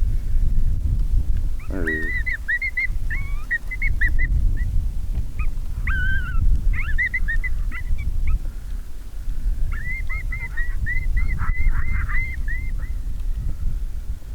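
Coyotes yipping: rapid strings of short, high, wavering yips, in two bursts with a pause between, over steady wind rumble on the microphone.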